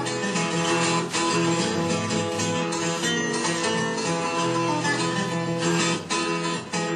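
Fingerpicked guitar in open G tuning playing an instrumental blues passage, with no singing.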